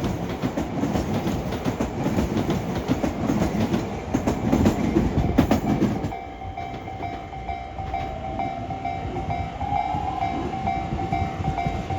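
A freight train towing new Tobu 90000-series railcars rolls past, its wheels clattering over the rail joints. About halfway through the rumble suddenly drops away as the last car clears, leaving the level-crossing warning bell ringing steadily.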